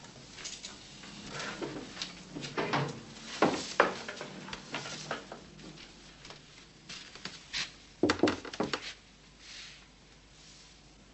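Scattered knocks, clicks and rattles of objects being handled and moved as a room is searched for hidden listening devices, with a louder cluster of knocks about eight seconds in.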